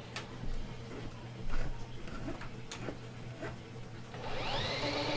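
Drain-cleaning cable machine: scattered clicks and knocks of the cable over a low hum, then about four seconds in its motor spins up with a rising whine that levels off.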